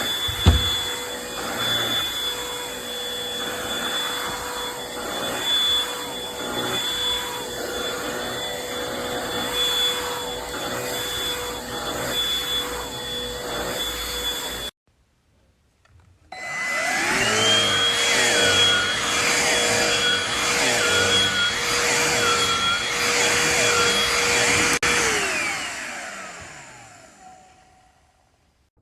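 Bissell Pet Hair Eraser lithium-ion cordless hand vacuum running with a steady motor whine, which cuts out abruptly about halfway. It then starts up again with a rising whine, runs steadily, and is switched off, its pitch falling as the motor winds down. A single thump sounds right at the start.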